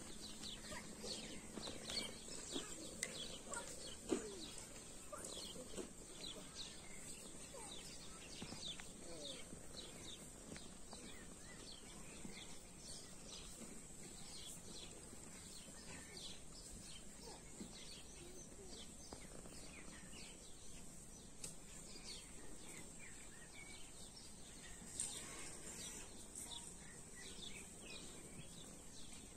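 Faint outdoor birdsong: many short, quick chirps from small birds, repeating throughout over a steady high-pitched drone.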